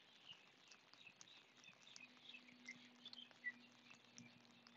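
Faint riverside ambience: small birds chirping in the distance, with scattered light ticks and a faint steady low hum from about two seconds in.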